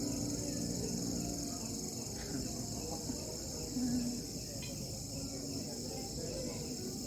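Crickets chirping in a steady, continuous high-pitched trill.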